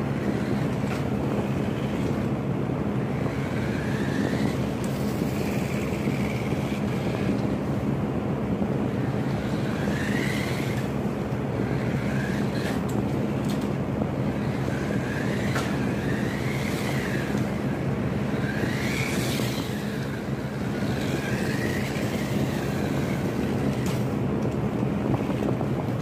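Motor of a small remote-control car whining in short bursts, its pitch rising and falling again and again as the throttle is worked, over a steady low hum and hiss.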